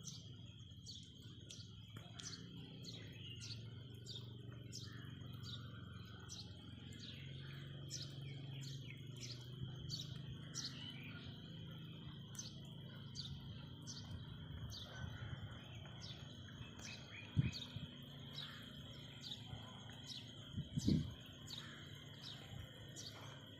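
A small bird chirping over and over in a regular run of short falling chirps, over a steady high tone and a low rumble. Two sudden thumps stand out, one about two-thirds of the way in and one near the end.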